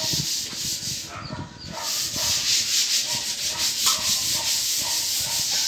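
Electric arc welding: the steady crackling hiss of the arc, which drops out for about half a second a little over a second in and then strikes up again.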